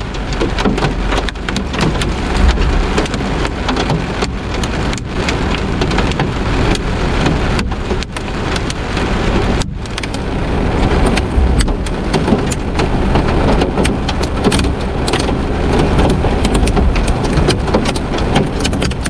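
Hailstones, some larger than quarters, pounding the roof and Lexan window guards of a vehicle, heard from inside the cab as a dense, unbroken clatter of hits. The storm is at its most intense.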